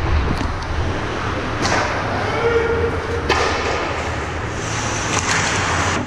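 Ice hockey play close to the goal: skate blades scraping and hissing on the ice, with several sharp clacks of sticks and puck, the loudest about three seconds in. The scraping grows near the end as players come in around the net.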